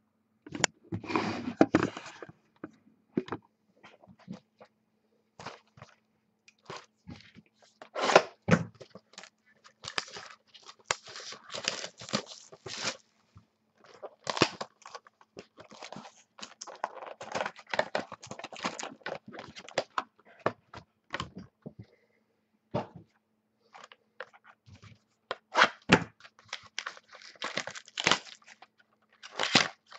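Sealed Topps Museum Collection football card boxes being unwrapped and handled: packaging crinkling and tearing, with cardboard scraping and clicking in irregular bursts as the boxes are set down and stacked.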